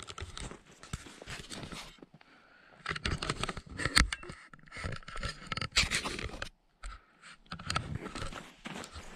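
Footsteps crunching through fresh, deep snow: irregular crunching steps, with a short break about two-thirds of the way in.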